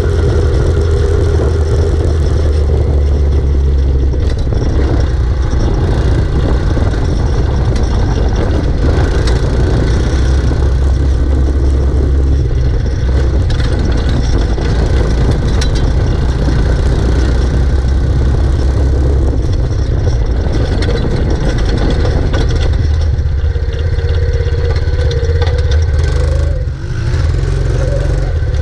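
KXD 125 cc ATV engines running as the quads are ridden along a rough dirt track, with a heavy low rumble throughout and the engine pitch rising briefly near the end.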